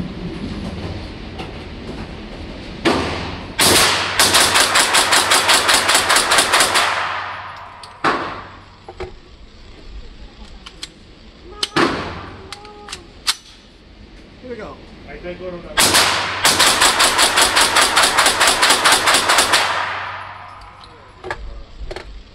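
Rapid strings of 9mm gunshots from an AR-9 pistol with a muzzle brake, about five shots a second. There are two long strings of roughly three seconds each, with a few single shots between them. Each string rings on in the echo of an indoor range.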